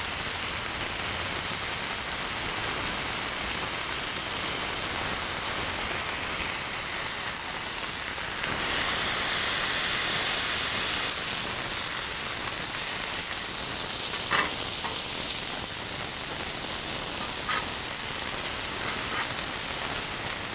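Smashed ground-beef patties sizzling steadily on a hot flat-top griddle, with a short click about two-thirds of the way through.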